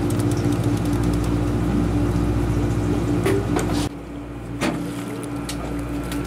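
A boat's engine running with a steady drone, a few sharp clicks and knocks over it. The sound drops suddenly in level about four seconds in.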